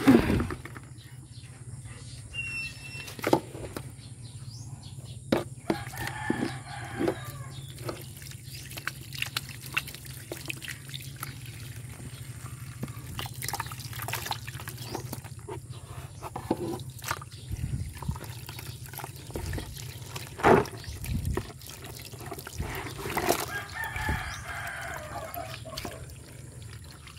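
Water running from a garden hose into a plastic basin as hands rub soil off freshly dug ginger rhizomes, with scattered knocks and splashes. A rooster crows twice in the background, about six seconds in and again near the end.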